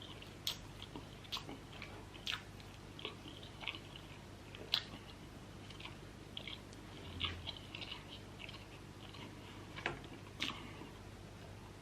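A person eating spicy instant noodles and chicken close to the microphone. Faint, irregular chewing and biting sounds, with short clicks and mouth smacks at uneven intervals.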